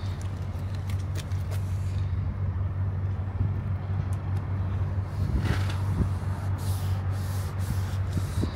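A motor vehicle engine idling steadily with a low, even hum, with a few light clicks and rustles on top.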